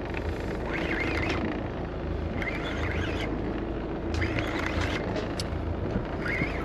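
Boat engine running steadily, with short rasping bursts about every second and a half.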